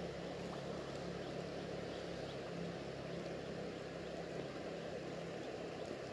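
Steady rushing of a shallow flowing river. A low, steady engine-like hum runs under it and fades out about five seconds in.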